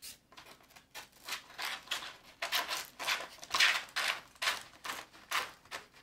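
Foam wing half of a model F-22 jet being pushed along its carbon fiber wing spar and into the fuselage: a run of short scraping, rubbing strokes, loudest a little past halfway.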